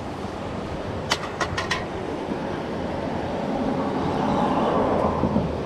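Steady rush of a flooded creek in heavy current, with a few sharp clicks about a second in.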